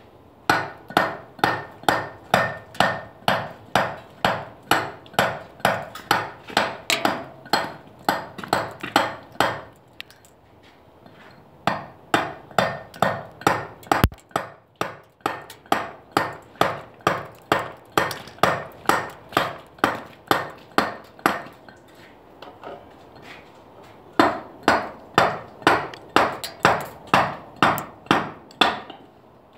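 Mallet driving a chisel into limestone: sharp, evenly spaced blows at about two a second, in three runs with two short pauses.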